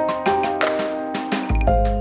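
Background music: a bright melody of short struck notes, about three or four a second. A low rumble comes in near the end.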